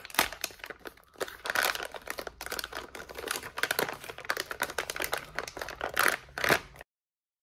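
Clear plastic packaging being torn open and crinkled by hand: a dense run of sharp crackles, loudest about six seconds in, cutting off abruptly just before the end.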